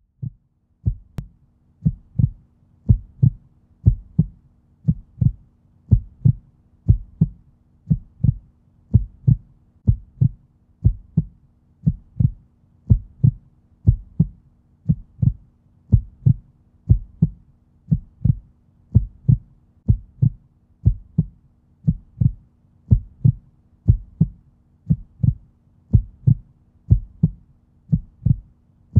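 Heartbeat sound effect: steady low double thumps, about one beat a second, over a faint steady hum.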